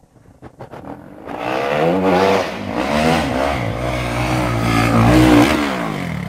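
Dirt bike engine revving hard under full throttle as the bike climbs a steep dirt ledge, its pitch rising and falling several times with the throttle. It starts faint, grows loud about a second in, and drops away near the end.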